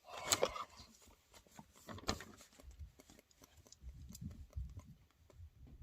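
Faint clicks, taps and rustles of small plastic Lego pieces being handled and pressed into place, with two sharper clicks early on.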